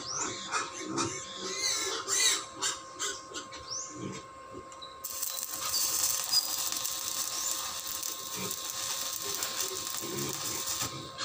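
Pigs calling and squealing for the first few seconds. About five seconds in, a stick (arc) welder strikes on the steel gate and runs with a steady crackling sizzle until just before the end.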